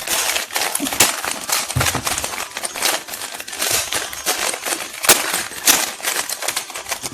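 Rubik's cube being scrambled: a quick, unbroken run of plastic clicks and clacks as its layers are twisted.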